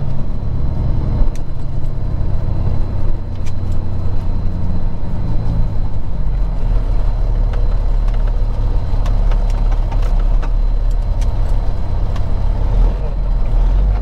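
Peterbilt 379 semi truck's diesel engine running while driving at low speed, a steady low drone whose pitch shifts a few times as the truck slows and changes speed.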